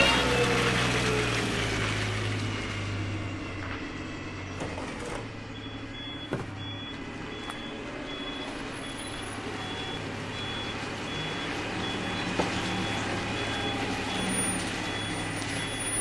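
Truck engine running with a steady low hum while a load of trash slides and tumbles out onto the pile. About five seconds in, a backup alarm starts beeping, a little more than once a second.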